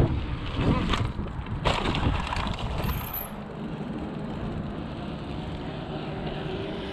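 Mountain bike rolling along a concrete path, with wind buffeting the microphone for the first few seconds and two sharp knocks a little after a second in; after that the rolling noise settles and gets quieter.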